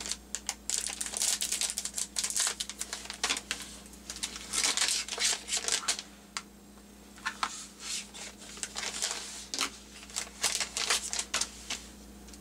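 Crinkling of a thin plastic bag as it is cut open with scissors and handled to pull out LED halo rings: dense crackly rustles in several bouts, with short quiet gaps between them.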